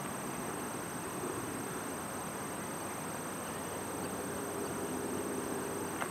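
Steady outdoor ambience at the waterside: an even rushing noise, with a faint steady hum between about four and five and a half seconds in.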